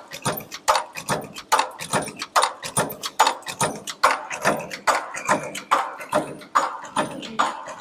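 Automatic-feed metal button punch press running: a fast, uneven clatter of sharp metallic clicks and knocks, several a second, as the press punches and ejects buttons.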